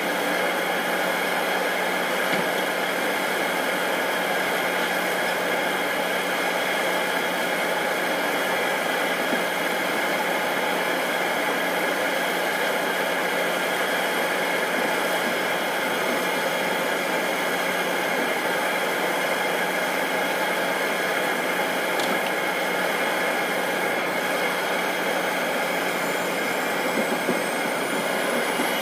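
Air Tractor crop-duster's Pratt & Whitney PT6A turboprop idling on the ground with the propeller turning slowly: a steady whine over a broad hiss. Near the end a tone begins to rise in pitch as the engine starts to spool up.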